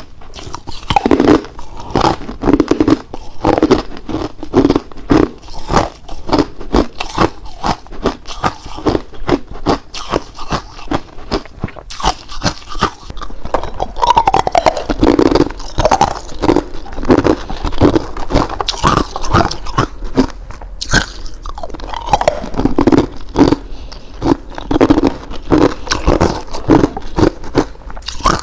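Ice being bitten and chewed close to the microphone: a rapid, irregular run of loud crunches and cracks.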